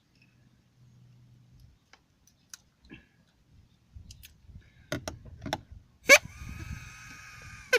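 Scissors snipping a plastic drinking straw several times. Near the end, the straw horn, its tip cut to a point on both sides, is blown: one held horn note lasting about a second and a half.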